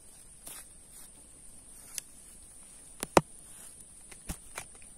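Scattered sharp clicks and rustles in dry grass as a freshly hooked snakeskin gourami is swung in on the line and grabbed by hand, the loudest a single knock about three seconds in. A steady high hiss runs underneath.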